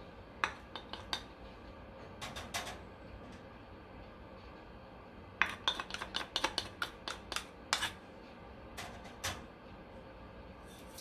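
A small dish and spatula clinking and tapping against a stainless steel mixing bowl as seasonings are scraped in. A few clinks come first, then a quick run of about a dozen taps in the middle, and two more near the end.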